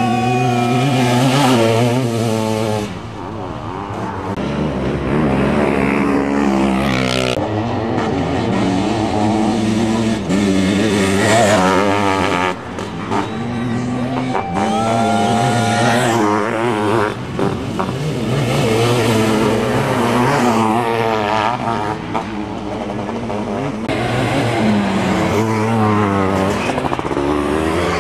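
Racing sidecar motocross outfits' engines revving hard and dropping back again and again as they accelerate and brake around the dirt track, the pitch rising and falling with each surge.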